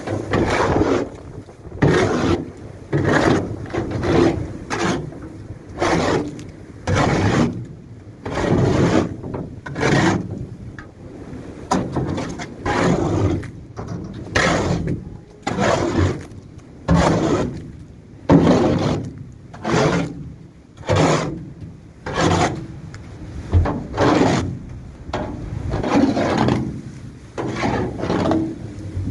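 A shovel and a scraper scraping wet cattle manure across a livestock trailer's floor in repeated gritty strokes, roughly one a second.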